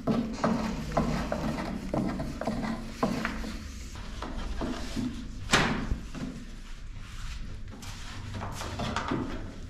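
Thin wooden rolling pins working sheets of Tiri bread dough on wooden boards: irregular light knocks and clacks of the pins against the boards, with one sharper knock about five and a half seconds in.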